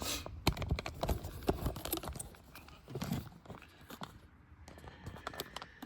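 Hands handling a plastic wiring connector and wire: quick irregular small clicks, taps and rustles, with a louder handling burst about halfway through.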